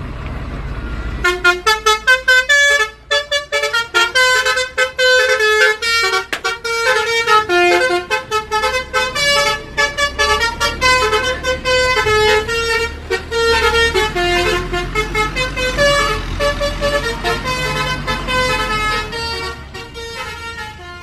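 Basuri 'telolet' multi-tone bus horn playing a fast melody of short, pitched horn notes. It starts about a second in and fades near the end, over a low rumble.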